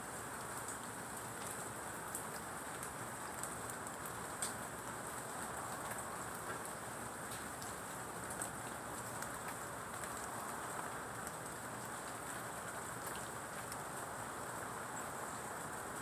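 Steady rain falling on garden leaves, rocks and ground, with single drops now and then ticking close by. The rain is not heavy.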